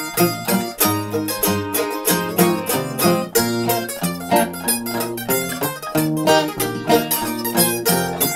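Instrumental break of a country-folk song played on acoustic plucked strings: a fast picked lead over strummed guitar and bass notes, with no singing.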